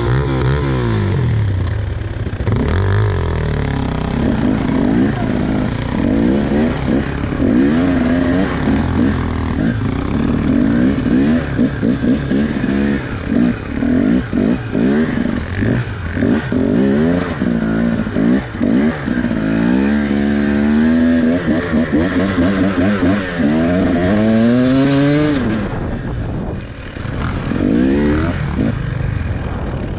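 KTM dirt bike engine, heard from on the bike, revving up and down with constant throttle changes while riding off-road. Late on it makes two longer rising runs in revs, each cut back sharply.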